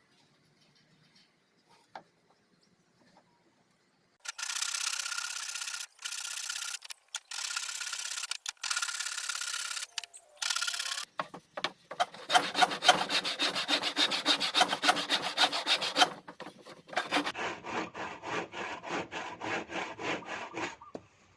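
Hand saw cutting a 1x2 wooden strip in quick, even back-and-forth strokes, with a brief pause partway through. Before the sawing there are several spells of high, hissing scraping.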